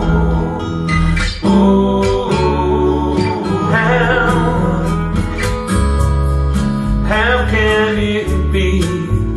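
Recorded song with acoustic guitar and bass played back through home-built three-way coaxial open-baffle hi-fi speakers, each with a 15-inch Eminence bass driver and an Eminence PSD2002S compression-driver tweeter. It is heard in the room through a camera microphone.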